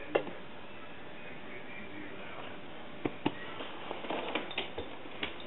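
Close handling noise from a camera pushed into a pet's fur during petting. A soft steady hiss carries a sharp knock just after the start, two clicks a little past halfway, and a patter of lighter clicks near the end.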